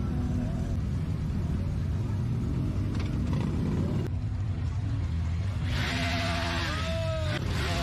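Motorcycle engines running with a low rumble as bikes move slowly through a crowded street. From about six seconds in a louder, higher engine sound joins, its pitch dipping and rising briefly near the end.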